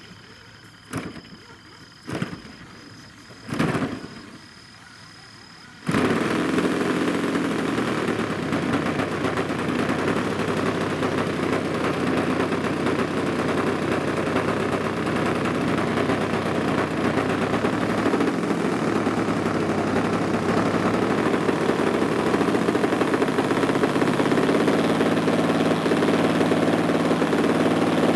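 Large-scale RC aerobatic airplane's engine: a few short pops as it is turned over, then it catches about six seconds in and runs steadily at idle.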